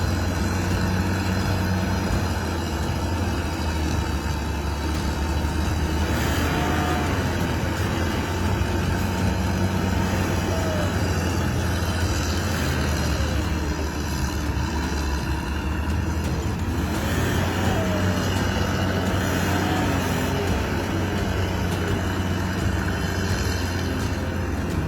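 Vehicle engines running with a steady low drone, with no sharp impacts.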